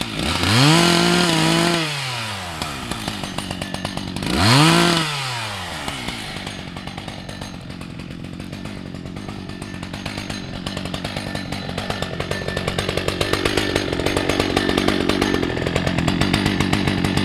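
Husqvarna 181 SE two-stroke chainsaw revved up and back down twice in short bursts, then left idling with a steady pulsing putter that grows louder toward the end.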